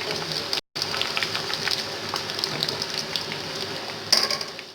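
Fish fingers frying in hot oil: a steady sizzle with many small crackles and pops, cutting out briefly under a second in and flaring louder near the end before fading.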